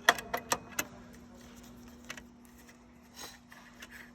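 A cover being pulled off a control panel and handled: a quick run of about five sharp clicks and taps in the first second, then two single clicks later, over a faint steady hum.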